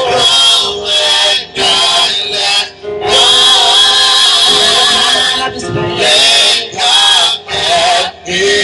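A small group of male and female voices singing a gospel song together into microphones, in sung phrases with short breaths between them.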